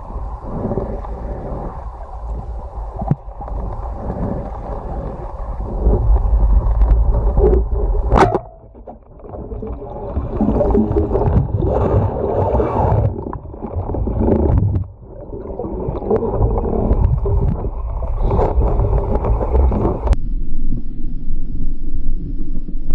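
Water sloshing and gurgling, picked up by a camera in or at the water during spearfishing. There is a sharp click about eight seconds in, and another about twenty seconds in, after which the sound turns more muffled.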